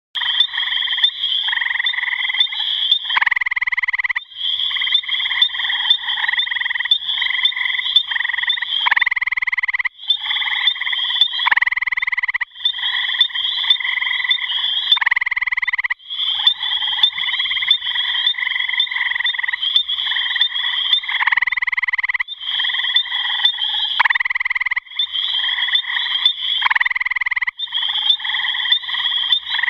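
Gray tree frog (Hyla versicolor) calling: a loud, musical trill repeated almost without pause, with a few brief breaks.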